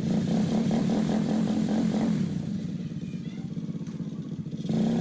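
Small motorbike engine of a homemade three-wheeler running through its newly fitted muffler. It is louder for the first two seconds, eases off, then picks up again near the end.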